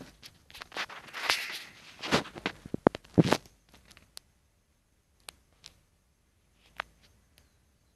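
Handling noise close to the microphone: a quick run of knocks, taps and rubbing as a hand moves by the camera, loudest about three seconds in, then a few small clicks.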